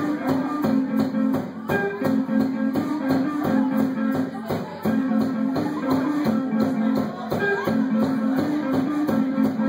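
Live rock band playing: electric guitars and bass running a repeating riff over a steady drum beat.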